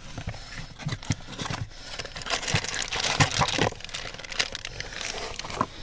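Plastic clicks, knocks and scraping as an air-conditioning air door actuator is worked loose and pulled out of the side of the air box under the dashboard.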